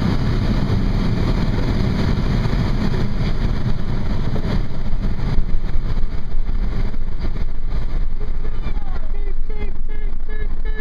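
Car being driven, heard from inside the cabin: steady engine and road noise. A few short, high chirps come near the end.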